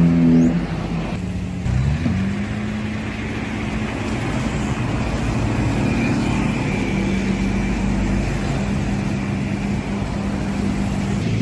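Motor vehicle engine running steadily. Its pitch drops about half a second in, climbs again around two seconds in, then holds steady.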